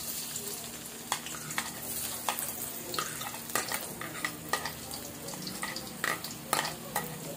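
Chopped garlic sizzling in hot oil in a wok, starting abruptly as it goes in, with the metal ladle clicking and scraping against the pan as the garlic is stirred.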